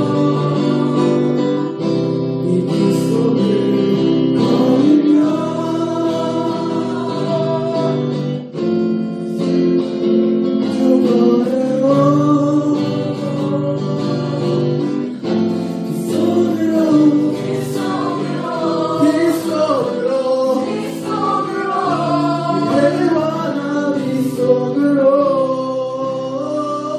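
A group of people singing a song together, with acoustic guitar accompaniment.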